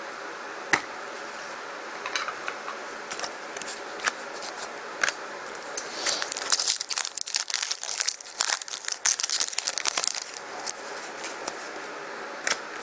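Trading cards and their foil pack wrapper being handled: a few scattered sharp clicks, then a dense run of crisp crinkling for about four seconds, starting about six seconds in.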